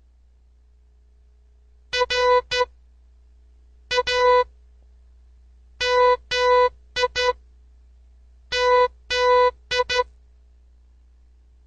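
Morse code beeps: a steady electronic tone keyed into short dots and longer dashes, in four separate groups about two seconds apart, each group a word sent for the listener to decode by ear.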